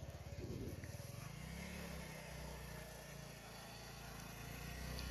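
Small motorcycle engine running as the bike rides across the yard, its note steadying after about a second and growing louder near the end as it comes closer.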